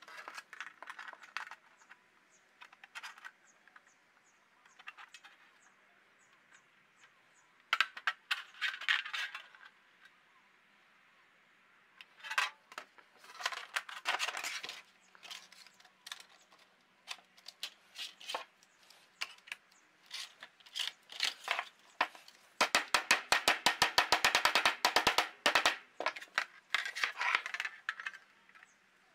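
Thin galvanized sheet metal being gripped, bent and handled with a hand seamer on a metal bench: scattered metallic clanks, rattles and short ringing taps in clusters, with a fast run of sharp taps about three-quarters of the way through.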